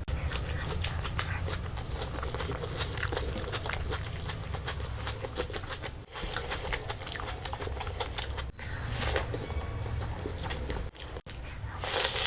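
A person chewing and biting food close to the microphone: a steady run of wet mouth clicks, with louder bursts about nine seconds in and again near the end.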